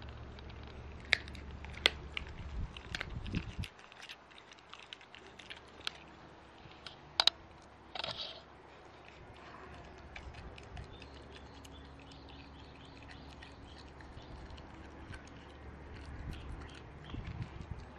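A corgi chewing a raw lamb tail held out in a gloved hand: irregular wet smacks and sharp crunching clicks of teeth on the bony tail. A low hum underneath stops about four seconds in.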